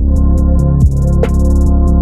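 Electronic music with a heavy bass, synth chords and a steady drum-machine beat with regular hi-hat ticks.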